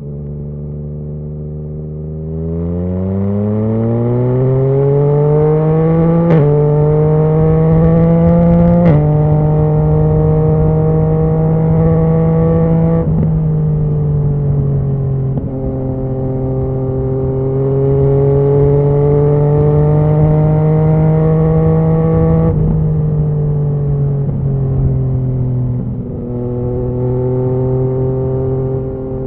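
2019 Yamaha MT-09's three-cylinder engine through a Scorpion Serket full exhaust, revving up from low about two seconds in and upshifting twice on the quickshifter, each shift a sharp crack with a small step in pitch. It then holds a steady note, easing off and picking up again several times.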